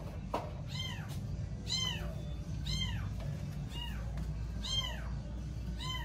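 Kitten meowing over and over, six high meows about a second apart, each rising and then falling in pitch.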